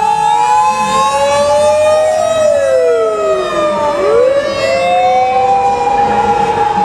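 Sirens of two or more emergency vehicles wailing at once, each a slow rise and fall in pitch, running out of step so that their tones cross.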